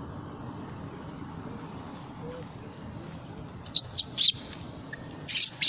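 Baby long-tailed macaque giving short, shrill distress screams as an adult grabs and pulls at it: three quick cries about four seconds in, then two more near the end.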